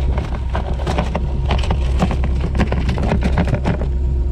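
Boat motor running steadily under a rapid flurry of splashes and knocks from a just-netted Chinook salmon thrashing, which stop about four seconds in.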